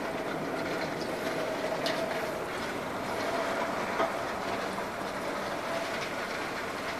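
Heavy rain against a window pane, heard from inside as a steady dense hiss, with a faint steady hum beneath it and a sharp tap about four seconds in.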